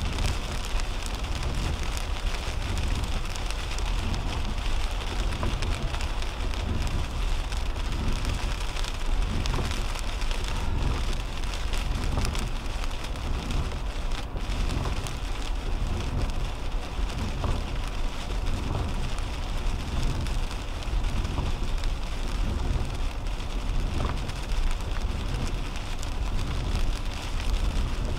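Rain falling on the windshield and roof of a 2010 Toyota Camry, heard from inside the cabin, over a steady low rumble of tyres on the wet highway.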